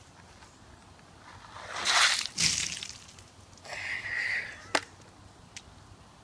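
A bowl of ice water dumped over a person's head: a rushing pour that builds into a loud splash about two seconds in, with a second splash just after. A brief high-pitched sound follows, then a sharp knock and a faint click.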